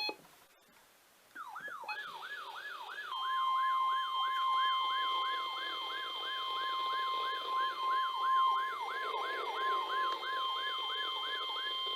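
Weather-radio warning alarm: a steady 1050 Hz alert tone layered with a siren, whose pitch falls in quick repeated sweeps, about two and a half a second. The siren starts about a second and a half in, the steady tone joins about three seconds in, and both stop abruptly near the end.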